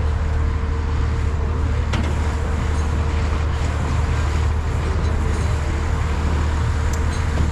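Steady low rumble of road traffic with a constant hum underneath, unbroken throughout.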